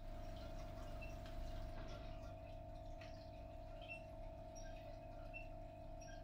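Faint steady electrical hum with a constant mid-pitched tone over it, and a few faint, brief high pings scattered through.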